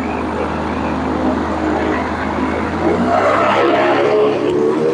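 Weight-shift trike's Rotax 912 engine and propeller running, then rising in pitch and getting louder about three seconds in as power comes up for takeoff. Heard through the intercom recording with heavy hiss.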